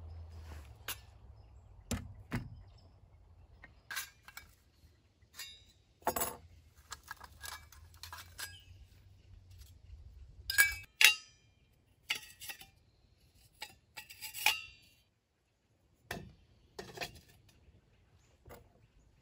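Stainless steel wood-burning camp stove parts and metal cups clinking and knocking against each other and the wooden tabletop as they are unpacked and set up: a scattering of separate clinks, the loudest a little over ten seconds in.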